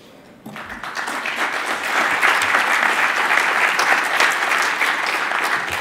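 Audience applauding, the clapping starting about half a second in and building to a steady level by about two seconds.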